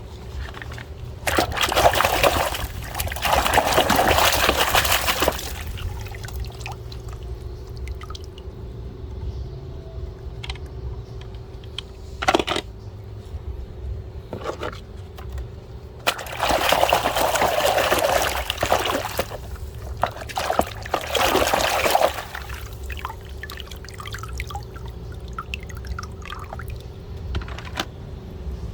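Water pouring and splashing over plastic toys in two bursts of a few seconds each, with small knocks and clicks between them. A steady low hum runs underneath.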